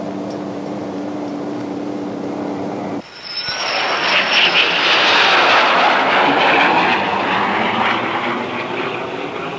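A steady machine hum with a held tone stops about three seconds in. A jet fighter then passes, its engine noise swelling with a brief high whine into a loud rush that is loudest midway and slowly fades.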